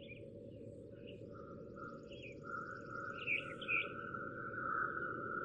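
Outdoor birdsong: repeated short, high chirps, with a steady high-pitched trill that joins about a second in and grows louder toward the end.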